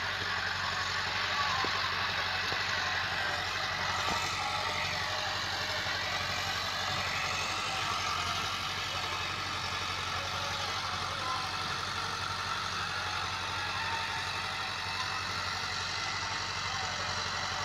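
Massey Ferguson 385 tractor's four-cylinder diesel engine running steadily under load as it pulls a cultivator through dry ground, heard from a distance as a continuous low drone.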